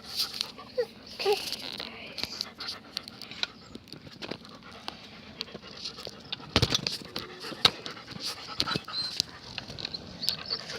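A dog panting close by, with scattered clicks and knocks through it and a few short squeaky sounds about a second in.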